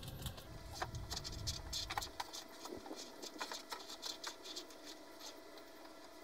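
Faint, irregular patter of small clicks and rubbing as heavy-gauge orange battery cable is handled and pulled through the car's body.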